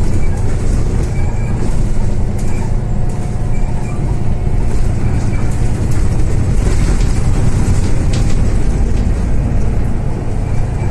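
Mercedes-Benz O530 Citaro city bus under way, heard from inside over the rear axle: its diesel engine and ZF automatic gearbox give a steady low drone, with light ticking rattles from the cabin fittings.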